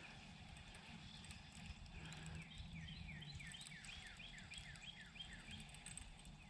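A faint run of short, high animal calls, each sliding downward in pitch, repeating about three times a second for about three seconds, over a low steady rumble.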